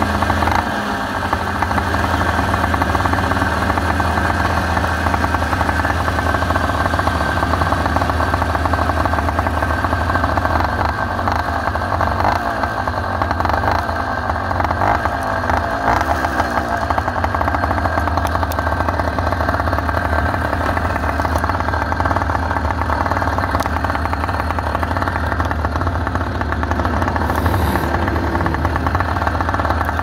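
Small two-stroke motorized-bicycle engine running steadily while riding along, holding a fairly even speed with only slight rises and dips in revs.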